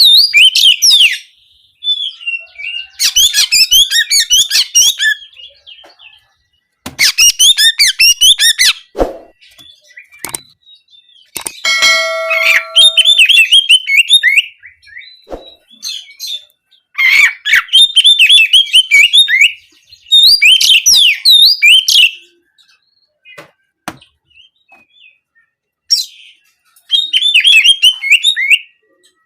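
Oriental magpie-robin (kacer) singing in repeated bursts of fast, twittering, canary-like phrases, each a second or two long with short pauses between.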